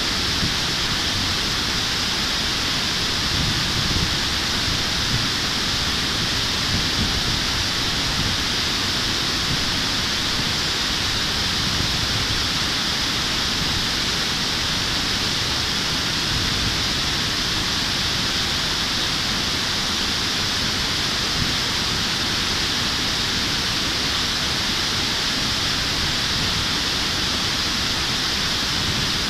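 River water pouring over a low concrete weir and churning below it: a steady, unbroken rush with a low rumble underneath.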